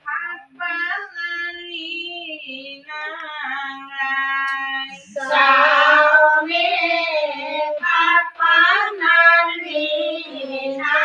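Women singing Ai naam, Assamese devotional hymns to the goddess Ai, with no instruments heard: sung phrases with wavering pitch. About five seconds in the singing turns louder and fuller as more voices join.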